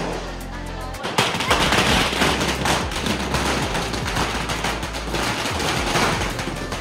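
A thousand-cracker ladi (a long string of small firecrackers) going off. About a second in it starts a rapid, unbroken rattle of small bangs that keeps going.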